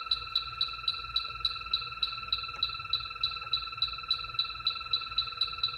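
Battery-powered H10 electronic refrigerant leak detector ticking fast and evenly, about five ticks a second, over a steady high whine. The sped-up ticking signals refrigerant, from a leak somewhere in the wall.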